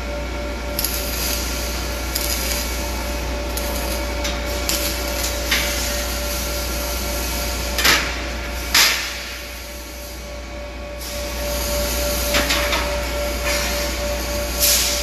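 Steel workpieces clanking a few times as they are handled on a welding bench, the two loudest clanks about eight and nine seconds in, over the steady hum of the fabrication shop's machinery.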